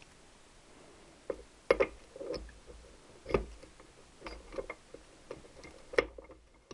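Steel gears and shafts of a Triumph 4-speed gearbox clicking and clinking against each other and the casing as they are worked into place by hand. The light clicks are irregular, the sharpest about two seconds in and again near the end.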